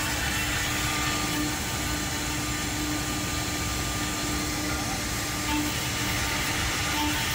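Two-head CNC horizontal drilling and milling machine for wood running: a steady machine noise with a faint held tone that fades in and out.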